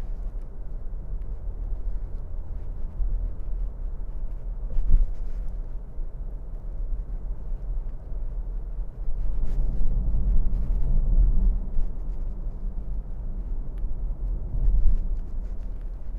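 Low, steady road rumble inside the cabin of a moving 2018 Lexus RX 350, with brief thumps about five seconds in and again near the end.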